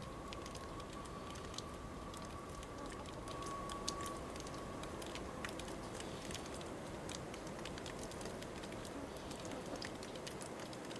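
Scattered water drops pattering and ticking irregularly over a steady hiss. A faint, steady high tone sounds in the first half and fades out about halfway.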